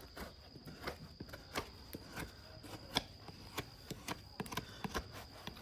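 Farrier's tools working a horse's hoof: irregular sharp clicks and short scrapes, one or two a second, as horn is cut and pared.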